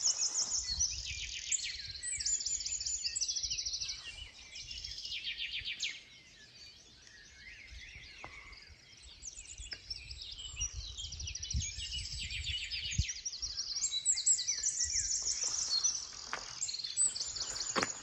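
Several small songbirds singing in rapid high trills and chirps, their phrases overlapping. The song dies down for a few seconds in the middle, then picks up again, over a faint low rumble.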